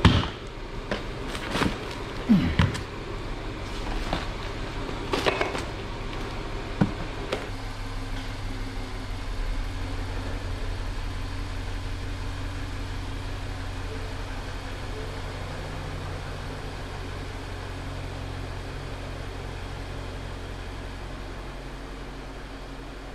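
A few sharp knocks and clicks, then from about seven seconds in the steady low running of a BMW X5's N63TU twin-turbo V8, fading slowly as the SUV moves out of the garage.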